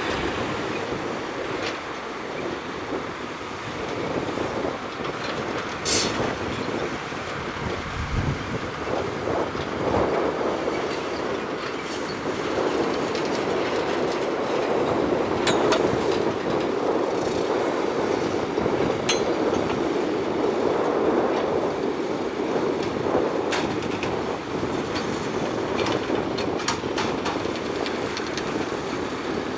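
Shantui crawler bulldozer at work: its diesel engine runs steadily under the clatter of its steel tracks, with occasional sharp metallic knocks.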